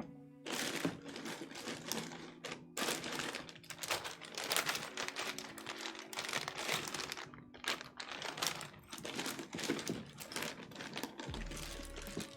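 Gateron Yellow mechanical keyboard switch, handheld and not fitted in a keyboard, pressed and released over and over in quick succession: a fast run of plastic clacks. It is being test-pressed as a known-good baseline for judging the smoothness and sound of other switches.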